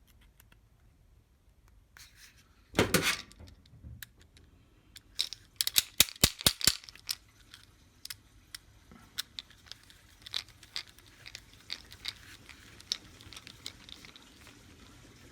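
Handling noise as a soldering tip attachment is fitted onto a butane torch: small plastic and metal parts clicking, knocking and rattling. There is a short rustling burst about three seconds in and a quick run of clicks a couple of seconds later.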